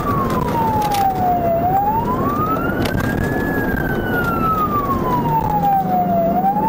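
Police car siren in a slow wail, falling, rising and falling again about every four to five seconds, over steady road and engine noise.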